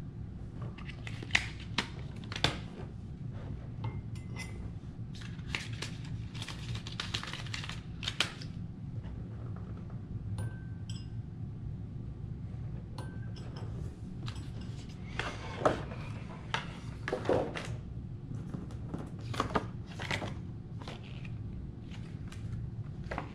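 Metal stirring sticks and glassware clinking and tapping now and then as they are handled and set down on a table, a few sharper knocks among them, over a steady low hum.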